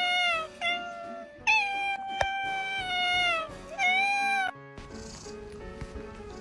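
A domestic cat meowing four times in long, drawn-out calls that sag in pitch at the end, the third the longest, about two seconds. The calls cut off suddenly about three-quarters of the way through, leaving a much quieter stretch.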